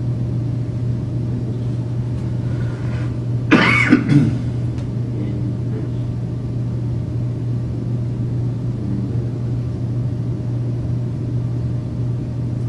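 Steady low hum of a quiet meeting room's background noise, held through a silent pause. One brief, loud, two-part noise stands out about three and a half seconds in.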